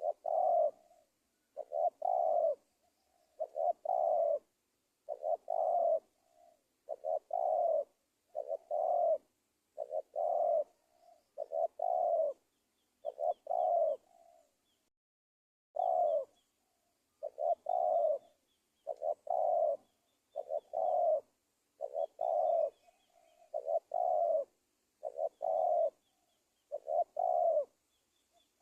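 Spotted dove (tekukur) cooing over and over, one short phrase about every one and a half seconds with a longer pause about halfway through. Faint high chirps of another small bird sound in the background.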